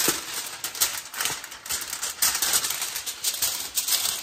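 Aluminum foil being pulled off the roll, torn on the box's cutting edge and crinkled while it is laid over the food, a dense irregular crackling.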